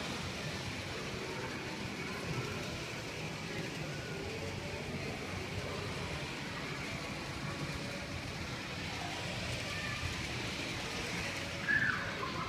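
Steady low rumble and hiss of background noise, with faint distant voices and a short high-pitched sound near the end.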